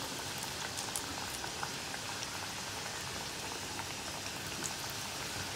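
Hot oil sizzling steadily in a cast-iron kadai as cauliflower pakoda batter deep-fries, with small scattered crackles.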